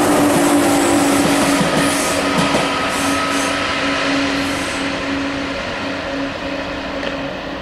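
Eurostar e300 (Class 373) high-speed train running away past, its wheel and rail noise fading steadily as it recedes. A steady traction-motor whine holds on under the noise.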